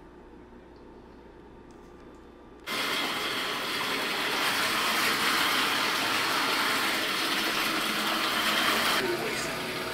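Water gushing from a bathtub faucet spout into the tub, starting abruptly about three seconds in as the tub begins to fill, and running steadily, a little quieter near the end. Before that, only quiet room tone.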